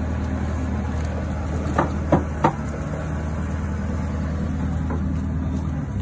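Forklift engine running steadily, with three sharp knocks in quick succession about two seconds in; its note shifts slightly just after them.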